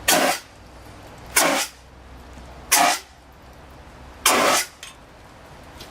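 Four short blasts of rushing noise from a special-effects rig under test, each about a third of a second long and about a second and a half apart.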